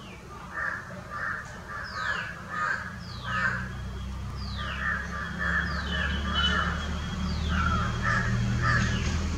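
Harsh, repeated bird calls, with short falling whistles about once a second over them and a low hum growing louder toward the end.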